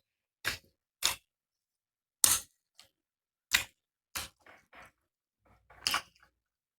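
Close-up eating sounds of biting and crunching grilled chicken: about eight short, sharp crackles with quiet gaps between them, the loudest about two seconds in.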